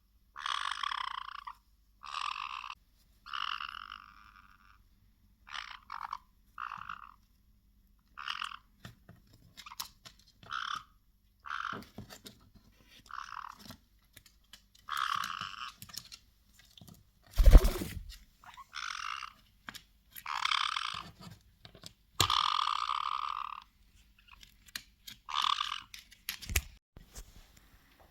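Caique parrots giving short calls over and over, about fifteen in all, each well under two seconds with short gaps between. A loud thump about two-thirds of the way through is the loudest sound, followed by a few sharp clicks.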